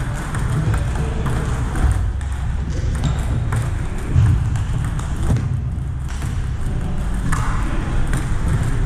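Table tennis rally: a celluloid-type ping-pong ball clicking off the paddles and the table about twice a second, then a few scattered ball bounces later on, over a steady low hum from the hall.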